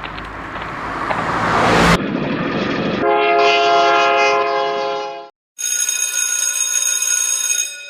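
Train sound effect: a rushing noise that builds for about two seconds and cuts off, then a steady train horn blast lasting about two seconds. After a short gap comes a second, brighter ringing tone that fades out near the end.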